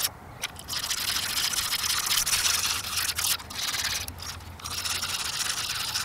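Folded 100-grit sandpaper rubbed by hand back and forth over a small carved wooden lure body, making a scratchy rasp of quick strokes that stops briefly a few times.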